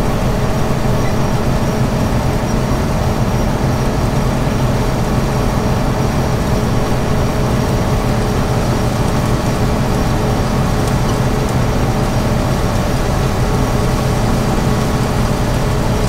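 1975 John Deere combine running steadily while harvesting corn: a loud, constant machine noise with a few steady low hums through it.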